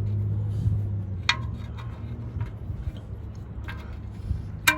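Two sharp metallic clinks, one about a second in and a louder one near the end, as the oil drain bolt is handled and threaded back into the oil pan, over a steady low hum.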